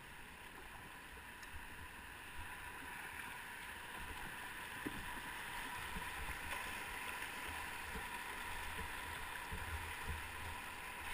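Rushing whitewater of a small river rapid, a steady hiss that grows louder as the canoe runs down into the falls, with scattered low thumps.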